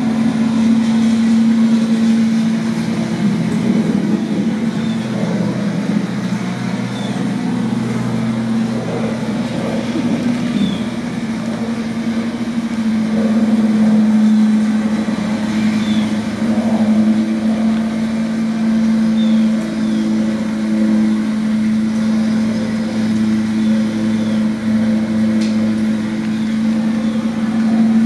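Outdoor ambience at a train stop: a steady low hum over traffic noise that swells and fades, with a few faint short high chirps scattered through.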